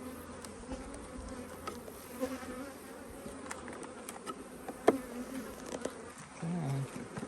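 Honeybees buzzing around an opened hive, a steady wavering hum, with a few sharp clicks and knocks; the loudest is about five seconds in.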